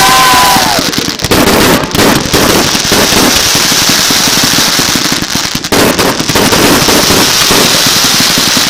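Fireworks going off: dense, rapid crackling and popping with no break. A whistling firework's steady whistle fades out under it about half a second in.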